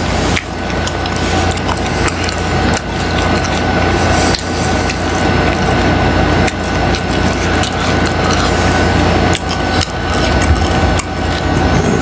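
Close-miked chewing of a crunchy taco with tripas: a dense, continuous crackle of crunches and sharp clicks, over a steady low hum.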